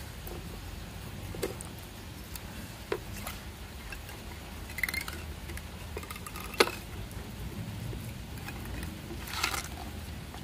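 Handling noises of a hooked softshell turtle held on a stick above a bucket of water: a few scattered light knocks, the sharpest about six and a half seconds in, and two short scraping rustles, over a steady low background noise.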